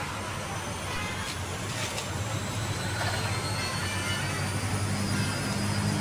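Electrolux front-load washing machine in its spin cycle, the drum speeding up again after coasting: a motor hum and a faint high whine rise slowly and grow louder toward the end, with a couple of light knocks about a second and two seconds in.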